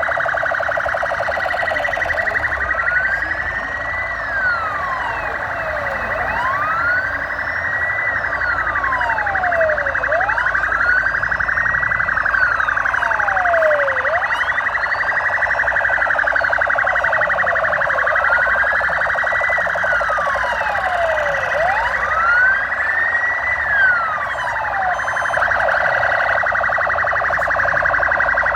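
Police vehicle sirens wailing, with slow rising-and-falling sweeps every few seconds over a steady, faster-warbling siren band.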